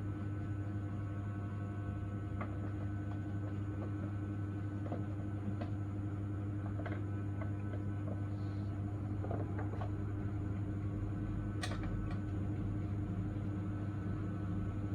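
Steady low machine hum with a few constant tones above it, and scattered faint clicks and taps, one sharper click near the end.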